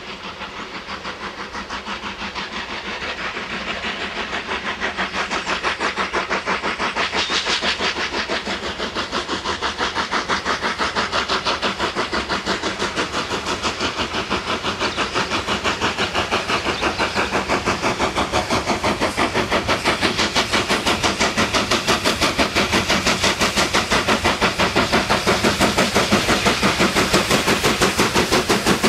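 LNER Q6 0-8-0 steam locomotive working hard up a steep 1 in 49 gradient: a steady, even rhythm of exhaust beats with hiss, growing louder as it approaches and passes close by.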